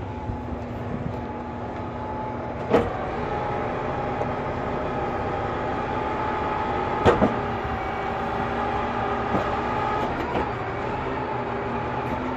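Heavy-duty tow truck's engine idling steadily, with a level whine over the hum. Two sharp knocks stand out, one about three seconds in and one about seven seconds in.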